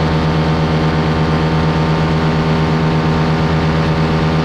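Paramotor engine and propeller droning in flight at a steady, unchanging pitch and power.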